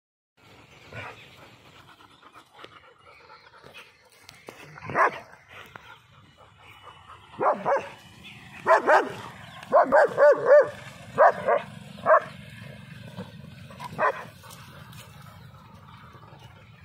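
Dogs barking in short single barks during rough play-wrestling, with a quick run of four barks about ten seconds in.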